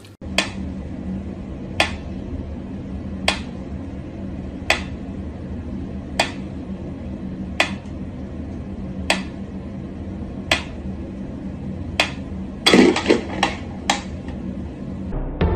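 Mechanical pendulum metronome ticking slowly and evenly, about one tick every one and a half seconds, over a steady low hum. Near the end comes a quick run of louder clicks and knocks.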